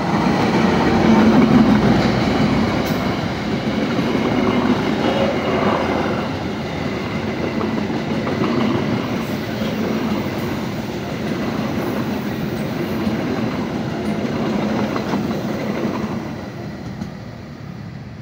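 A CC206 diesel-electric locomotive passes close by, loudest about one to two seconds in. Its train of passenger coaches follows, rolling past with repeated swells of wheel-on-rail noise, which fades near the end as the train draws away.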